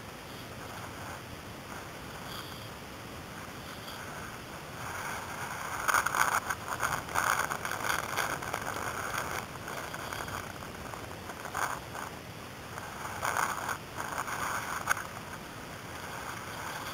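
Choppy water lapping and splashing against a small boat, with louder splashy bursts from about six to ten seconds in and again around thirteen to fifteen seconds.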